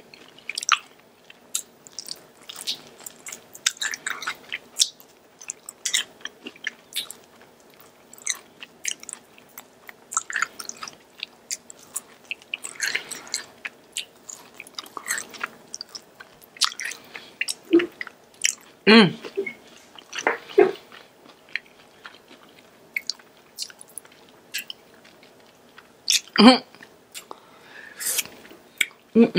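Close-miked chewing and biting of Korean fried chicken, heard as irregular short mouth clicks and crunches, with a few louder bites in the second half.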